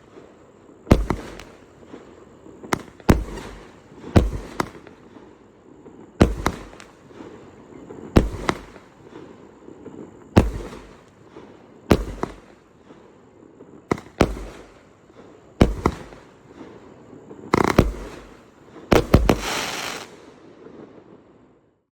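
A 36-shot fireworks cake firing its shots in sequence: a sharp bang every second or two, each trailing off in crackle. Near the end a denser, louder cluster of shots with heavy crackling makes the finale, then the sound dies away.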